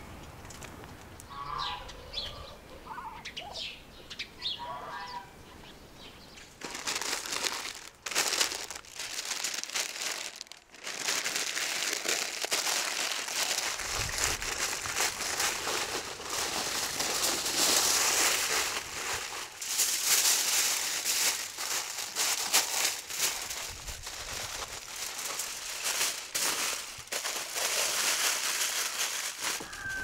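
Large sheets of aluminium foil crinkling and rustling as they are wrapped around a whole large fish, starting about six seconds in and continuing loudly to the end. Before that, a few short bird chirps.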